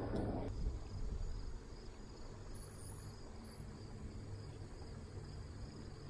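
Faint, steady insect trilling over a low rumble.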